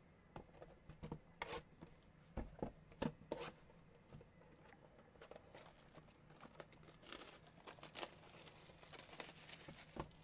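Trading card boxes handled and set down on a table, a scatter of light knocks and taps, then plastic shrink wrap crinkling and tearing through the second half as a box is unwrapped.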